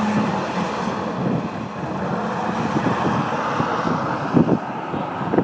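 Wind on the microphone over a steady hiss of road traffic, with a few low buffets near the end.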